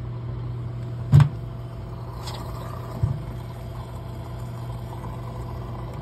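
Samsung front-load washing machine running its spin cycle with a steady low hum, spinning properly again now that its clogged drain-pump filter has been cleared. A sharp click about a second in, and a softer knock a couple of seconds later.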